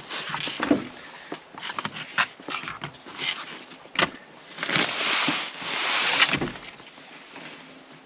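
Rustling and scattered knocks of bedding and gear being moved by hand, with a sharp knock about four seconds in and a longer, louder rustle just after it.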